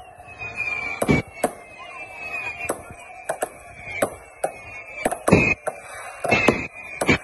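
Fireworks finale: aerial shells bursting in quick succession, about a dozen sharp bangs with the heaviest ones about five to seven seconds in. Under the bangs runs a thin high whistling tone that slowly falls in pitch.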